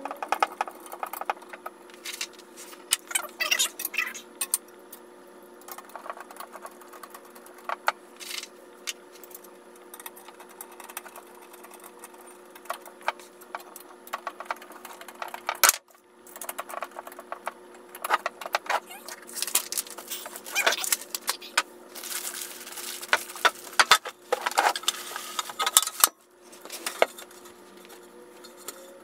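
Screwdriver driving screws into the steel frame of an IKEA VITTSJÖ laptop table, with irregular metallic clicks, scrapes and rattles as the tool and hardware knock against the tubing.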